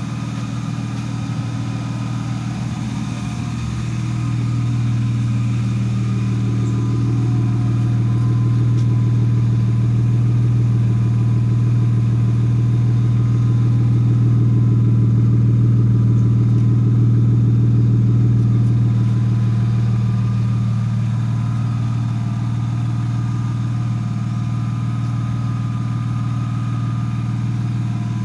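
BMW E36 323i's M52 2.5-litre inline-six idling steadily while warming up, getting somewhat louder from about four seconds in and easing back down a little after twenty seconds.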